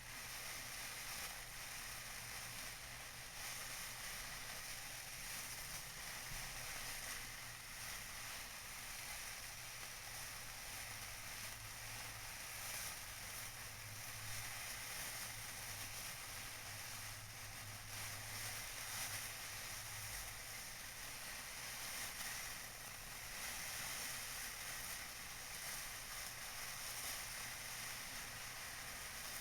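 Tissue paper being crinkled and rustled by hand, a continuous crackling with small swells and no pauses.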